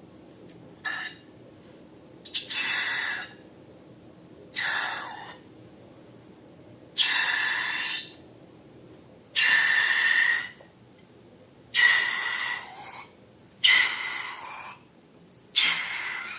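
Repeated hissing rushes of air, about eight in all, each lasting about a second and carrying a squeaky whistle, coming roughly every two seconds.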